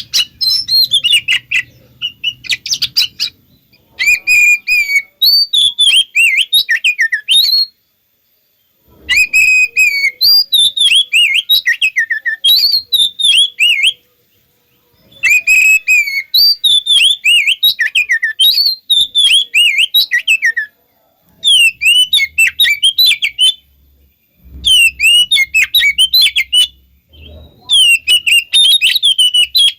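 Oriental magpie-robin (kacer) singing loud, rapid bursts of varied whistles and chattering notes. The phrases last two to five seconds each, with pauses of about a second between them.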